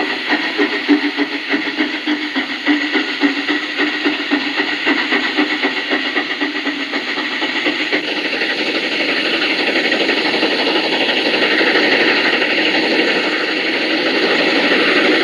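HO scale model steam locomotive running on the layout track: a steady motor-and-gear hum with rapid fine clicking, which about halfway through gives way to a steadier, slightly louder rushing noise.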